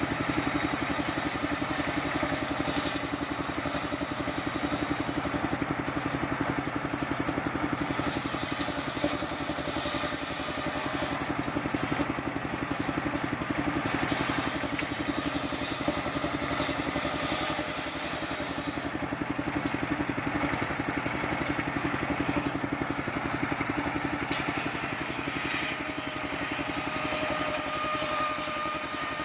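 Engine-driven circular saw running steadily while waru planks are ripped lengthwise through its large blade. The engine's steady running sound carries the whole time, and the noise of the blade in the wood swells and eases for stretches as the boards are fed through.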